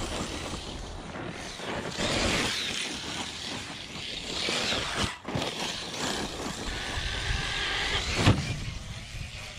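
Arrma Typhon-bodied electric RC buggy driving over dirt and gravel: its motor whines up and down with the throttle over the crunch of the tyres. A hard thump of a landing about eight seconds in is the loudest sound.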